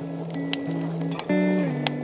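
Background music: held notes that step to new pitches every half second or so, with a few sharp ticks over them.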